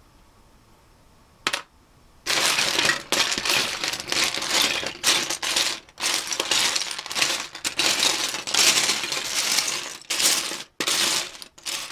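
Loose plastic Lego bricks clattering and clicking against each other as a hand rakes and sifts through a pile of them: one short clatter, then near-continuous rattling from about two seconds in.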